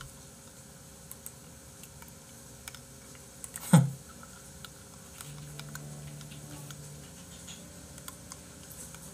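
Computer keyboard typing: light, scattered key clicks, with one loud short thump a little under four seconds in.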